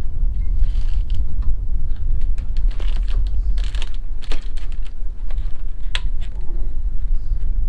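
Wind rumbling on the microphone, with scattered light clicks and knocks throughout.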